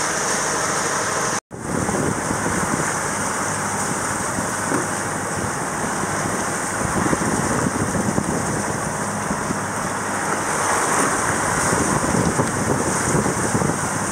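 Wind rushing over the microphone and water washing past a sailboat under way, a steady noise that breaks off for an instant about a second and a half in.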